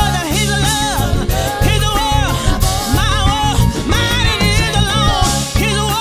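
Live soul band, with drum kit, electric guitar, bass and keyboards, playing under a woman's lead vocal sung with vibrato into a hand microphone.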